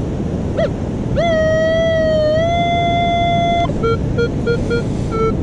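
Metal detector sounding its target tone: a short warble, a long steady tone, then a string of five short, lower beeps as the coil passes over a target reading 5-6, which could be a pull-tab. Steady wind and surf noise underneath.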